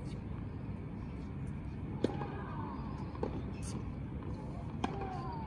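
Tennis ball being hit and bouncing during a rally: three sharp pops, about two, three and five seconds in, over a steady low background rumble, with faint voices.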